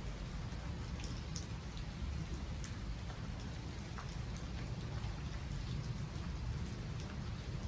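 Steady rain falling on trees, a constant patter with scattered individual drops ticking through it and a low rumble underneath.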